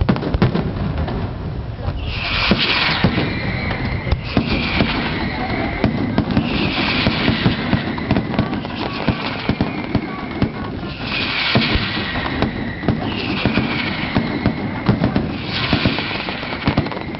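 Fireworks display: a dense run of bangs and crackles, with a hissing rush that falls in pitch about every two seconds.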